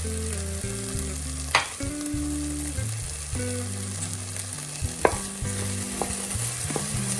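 Diced potatoes and onion frying in oil in a pan, a steady sizzle, while a wooden spatula stirs them, with two sharp knocks against the pan, about one and a half seconds in and about five seconds in.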